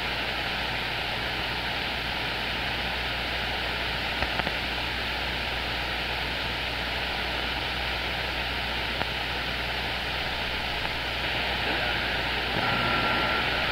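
CB radio receiver hiss from the speaker between transmissions: steady static with a faint hum under it. Near the end a short whistle-like tone comes in and the hiss gets a little louder.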